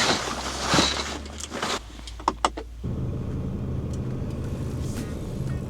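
Camper van's engine running, with a few sharp clicks and handling noises in the cab; about three seconds in, the engine settles into a steady low hum.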